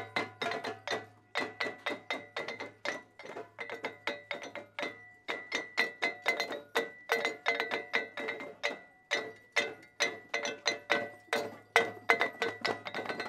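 Traditional Timorese percussion played fast: rapid, even strikes about five a second, with ringing pitched tones sounding over the beats.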